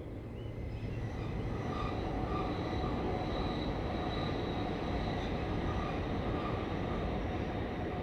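A train passing, a steady rumble that swells about a second in and then holds, with faint steady whining tones above it.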